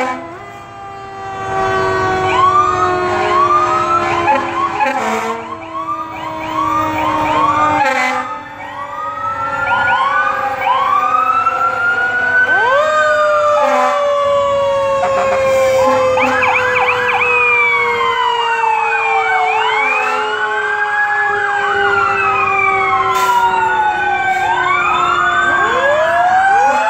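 Sirens from several fire trucks sounding together. Overlapping wails rise and fall with fast yelps among them, over a long tone that slowly drops in pitch.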